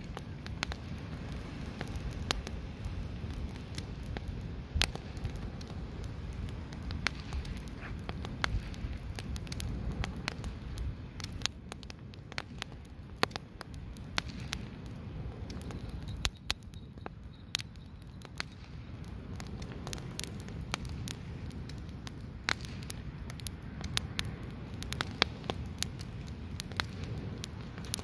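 Wood log fire burning, its firewood crackling with irregular sharp pops and snaps over a steady low rumble.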